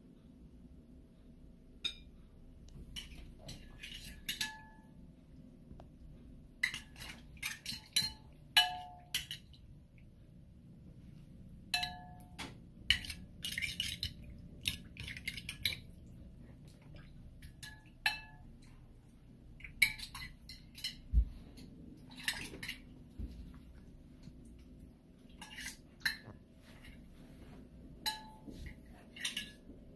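Dishes and utensils clinking on a kitchen counter: many short, irregular clinks in clusters, some ringing briefly, as bowls and tableware are handled.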